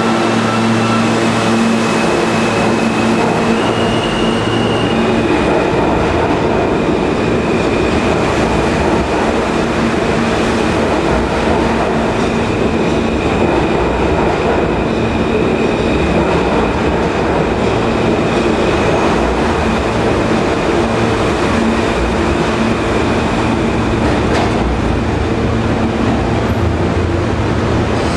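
R160A subway train pulling out of the station and running past the platform. A dense, steady rumble and clatter of wheels on the rails runs under a steady high whine that briefly steps up in pitch a few seconds in.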